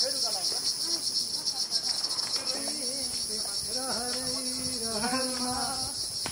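A dense insect chorus in the forest canopy: a steady, high-pitched buzz with a fast pulse. A person's voice joins from about halfway in.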